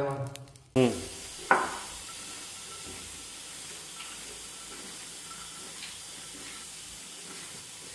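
A steady hiss, like frying on a stove, begins abruptly under a second in. Two short, sharp sounds with a falling ring come about one second and one and a half seconds in.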